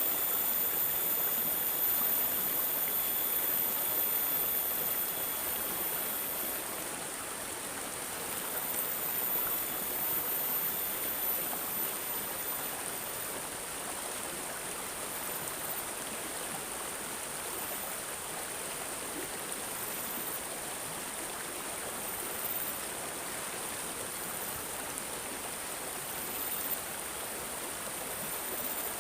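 A small stream gurgling and babbling steadily, with a thin high-pitched whine over it.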